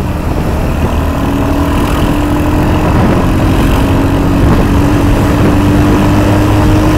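Royal Enfield Hunter 350's single-cylinder engine pulling under acceleration while riding, its note rising slowly and growing louder.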